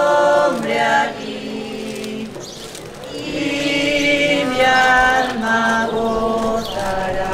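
Voices singing unaccompanied, holding long notes and stepping between them.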